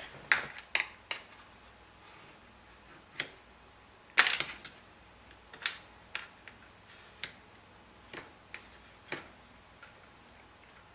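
Irregular light clicks and taps, with one louder clack about four seconds in: small parts and a thin aluminium sheet being handled and set down while a part's outline is traced.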